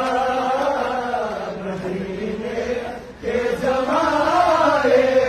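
Crowd of men chanting a noha (Shia lament) together in a slow, melodic line, with a short break about three seconds in before the next phrase.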